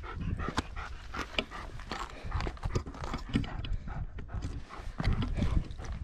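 Footsteps scuffing and crunching on granite rock and grit while walking uphill: a dense, irregular run of clicks and scrapes with low thumps under them.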